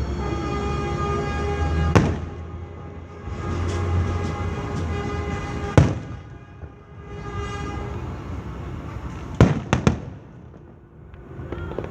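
Fireworks exploding: about five sharp bangs, the last three in quick succession near ten seconds in, over a steady low rumble and a held pitched tone.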